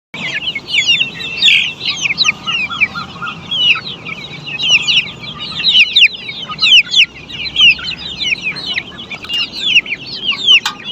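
A crowd of black Australorp chicks peeping together: a dense, continuous chorus of short, high cheeps, each sliding downward in pitch.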